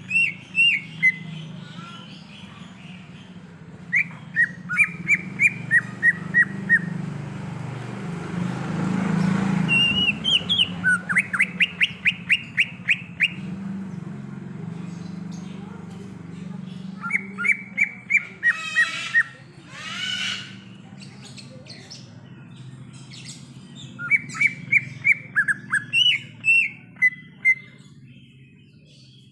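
Green leafbird (cucak ijo) singing: bursts of rapid chirps and whistles, repeated several times. Beneath it runs a steady low hum, and a rushing noise swells and fades about a third of the way in.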